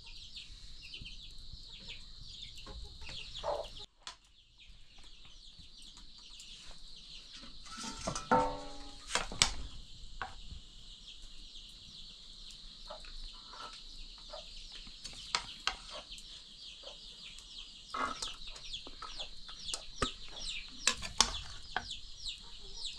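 Chickens clucking over a steady, dense high-pitched chirping, with a short pitched call about eight seconds in and a few sharp clicks.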